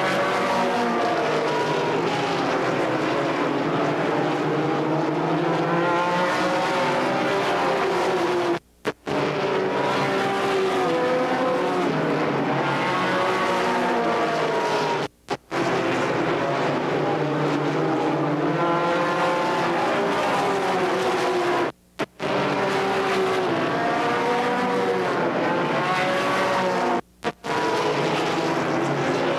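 A pack of ARCA stock cars racing on a short oval, their V8 engines running hard. Several engine notes rise and fall in pitch as the cars pass and go round. The sound cuts out sharply and briefly four times.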